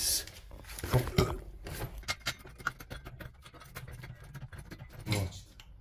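A run of light, irregular clicks and clatters from a red hydraulic trolley jack being set and worked under the car's side sill. A short voice sound comes near the end.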